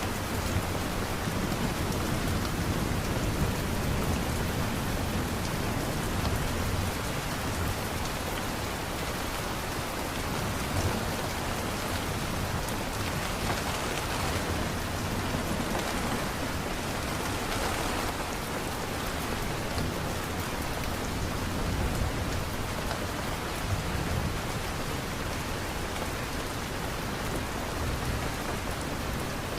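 Steady, dense rain falling, with a low rumble underneath.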